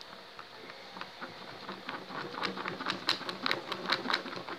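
Sticky neon slime being stirred with gold glitter in a tray: quick wet clicks and crackles, denser and louder in the second half, stopping suddenly at the end.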